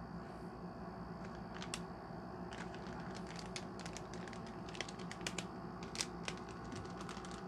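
Light, irregular clicks and taps from small pistol parts being handled, over a steady low background hum.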